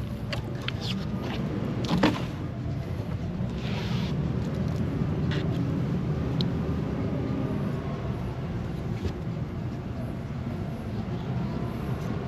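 Fillet knife tapping and scraping on a fish-cleaning board as fish is filleted, a few sharp knocks standing out, the loudest about two seconds in. Under it a steady low rumble.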